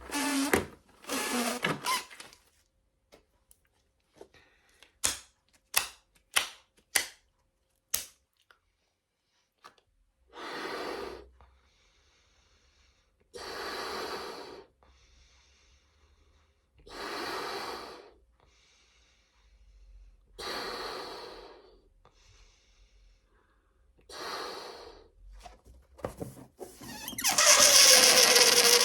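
Foil balloon crinkling with a few sharp clicks, then air blown into it in a series of breathy puffs a few seconds apart. Near the end it lets its air out in a loud rush with a squealing tone.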